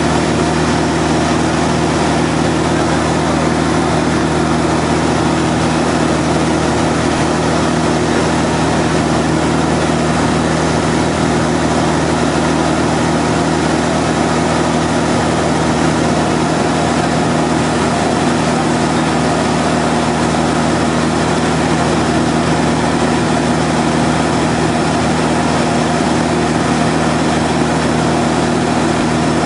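Van's RV-6 single-engine light aircraft's piston engine and propeller running steadily in level flight, heard inside the cockpit as a constant drone with a rushing noise over it. Pitch and loudness do not change.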